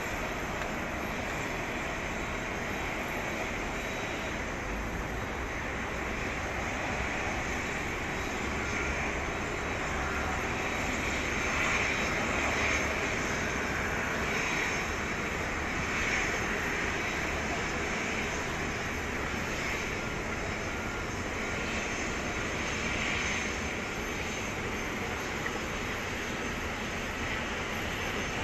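Hawker 800XP business jet's twin Honeywell TFE731 turbofans running at taxi power: a steady jet rush that swells slightly a few times.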